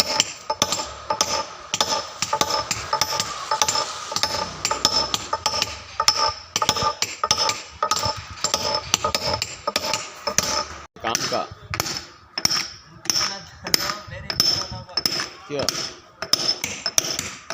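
Hammer striking a chisel on stone by hand in steady repeated blows, about three a second, each with a bright metallic ring, roughening (dressing) the stone's surface so it won't be slippery. The blows pause briefly about eleven seconds in.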